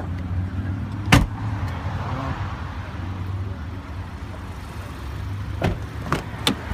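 Mazda CX-7's 2.3-litre turbocharged four-cylinder idling with a steady low hum, with one loud knock about a second in and three sharp clicks near the end as the door is handled.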